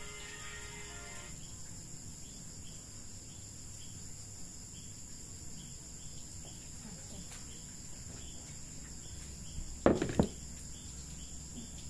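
Crickets and other insects chirping steadily, with one chirp repeating at an even pace. Near the end come two loud thumps close to the microphone, as the recording device is bumped.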